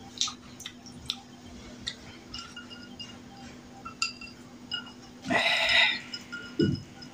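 Small clicks and clinks of a glass and dinner plate during a meal eaten by hand, with a sip from a glass of iced cola. About five seconds in comes a louder breathy rush lasting under a second, then a short, low voice sound.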